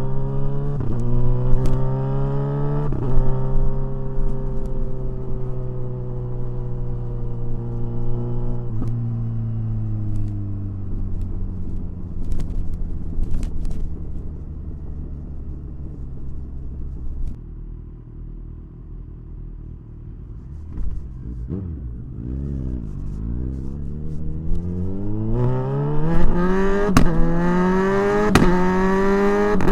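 Kawasaki Ninja 1000SX inline-four engine accelerating hard, with several quick clutchless quickshifter upshifts in the first three seconds, the pitch dropping sharply at each one. It holds a steady cruise, then eases off to a low, quieter note around the middle, and accelerates again near the end with more quick upshifts.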